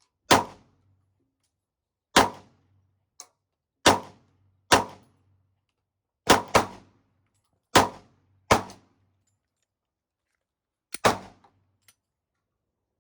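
Glock 19 Gen 5 9mm pistol being fired, about ten single shots at an irregular pace, a few in quick pairs (around six and a half and eleven seconds in), each a sharp crack with a short fading tail.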